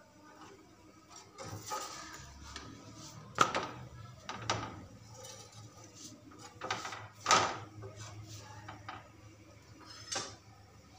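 A spatula scraping and knocking against a tawa (flat griddle) as a cooking paratha is lifted and turned: several sharp scrapes a second or so apart.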